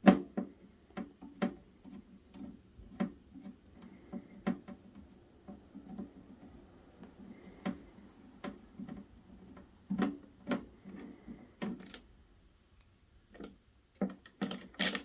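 Irregular small clicks and taps of a magnetic screwdriver working screws out of a heater's wheel mounts, with metal screws and plastic being handled; a few louder knocks about ten seconds in and near the end.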